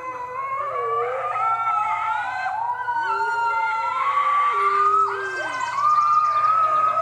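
Red wolves howling together: several overlapping howls that glide slowly up and down in pitch, among them the high, thin howl of a six-week-old red wolf pup.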